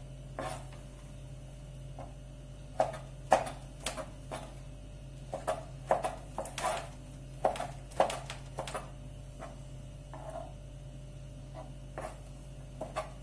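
Kitchen knife dicing raw lamb liver into cubes on a plastic cutting board: irregular knocks of the blade against the board, coming in uneven clusters with short pauses.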